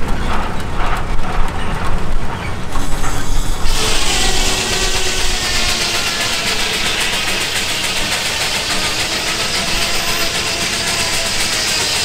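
Circular sawmill running: a low engine rumble throughout, joined about four seconds in by a steady high-pitched whine and hiss that holds to near the end.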